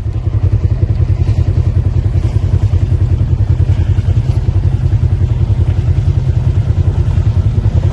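Side-by-side UTV engine running steadily, a deep engine note with an even, rapid pulse.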